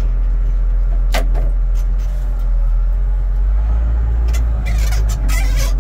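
Stinger Stacker 8500 bale stacker's diesel engine running steadily under way, heard from inside its cab, with a few short hissing sounds about a second in and again near the end.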